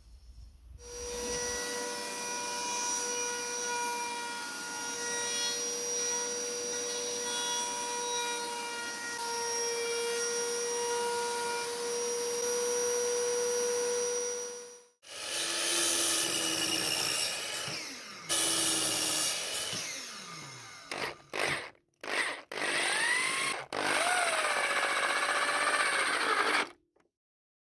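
Router in a router table running with a steady high whine while a chamfer bit shapes the rack's curved wooden edges; it stops sharply about halfway through. Then a power drill drives screws into the wooden frame in short stop-start runs, its pitch rising and falling with the trigger.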